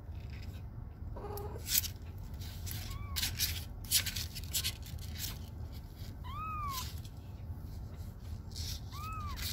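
A kitten mewing while its claws are being clipped: three short, high mews that rise and fall in pitch, the first faint about three seconds in, the next two clearer in the middle and near the end. A few sharp clicks come in between.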